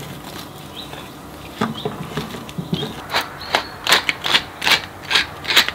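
A knife cutting through a roasted rack of meat on a wooden board, then a wooden pepper mill being twisted, giving a crunching grind about two or three times a second for the last few seconds.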